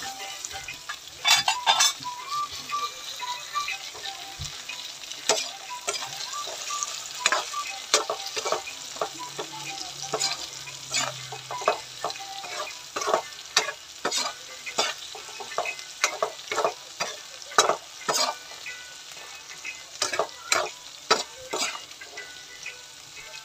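Whole red bird's eye chilies (siling labuyo) and garlic sizzling in oil in a pan, stirred with a metal spatula that scrapes and clacks against the pan every half second to a second.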